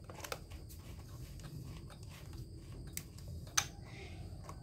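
A few faint clicks and taps as hands handle the plastic parts of a small two-stroke brush-cutter engine that is not running, the sharpest about three and a half seconds in, over a low steady hum.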